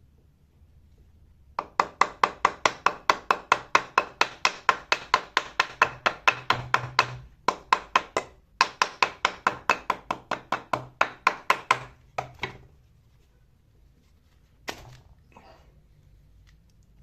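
Rapid, evenly spaced sharp knocks, about five a second, in two runs of several seconds each with a short pause between; a single short knock follows near the end.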